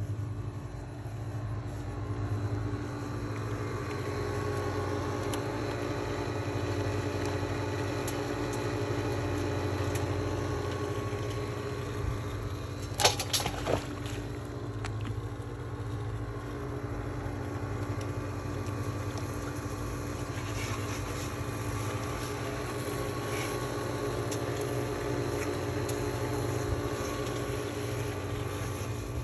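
A steady mechanical hum: a low drone with several held tones, unchanging throughout. A short cluster of sharp knocks comes about thirteen seconds in.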